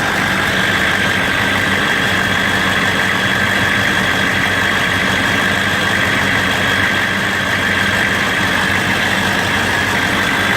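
6.5-litre V8 diesel engine idling steadily, with a thin steady high-pitched whine over the running sound.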